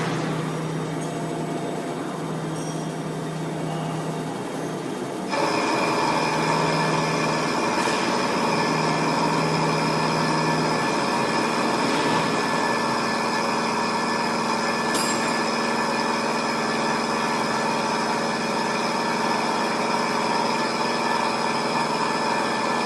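XH7145/VMC650 CNC vertical machining center running, with a low hum that switches on and off in the first several seconds. About five seconds in the machine gets louder, adding a steady whine of several tones that holds.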